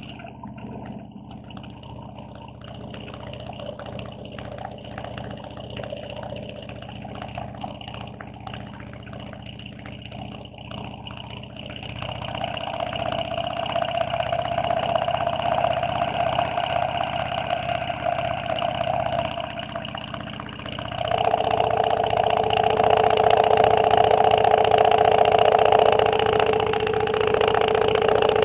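Harley-Davidson motorcycle cruising along a road, its engine and wind rush heard together at a steady pitch. The sound grows louder about twelve seconds in and again about twenty seconds in.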